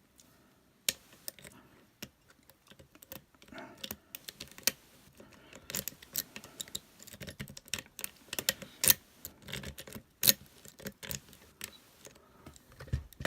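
Lock picks clicking and scraping in the keyway of a Master Lock lockout/tagout padlock with a metal core, as it is picked and raked: irregular small metallic clicks, busier from about four seconds in, with a few sharper snaps.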